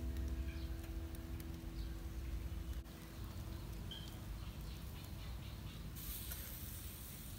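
Quiet outdoor ambience: a low wind rumble on the microphone with a few faint, short bird chirps. A faint steady hum stops about three seconds in, and a high hiss comes in suddenly about six seconds in.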